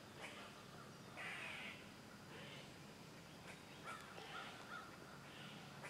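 Faint crows cawing: a series of short, harsh caws roughly a second apart.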